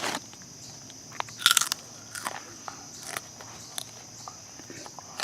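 Veggie chips being crunched and chewed in irregular bites, the loudest about one and a half seconds in. Insects keep up a steady high-pitched drone underneath.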